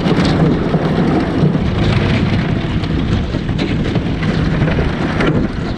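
Thin lake ice, about half an inch thick, crunching and crackling against the boat's hull as the boat pushes through it. A dense, continuous crackle over a low rumble.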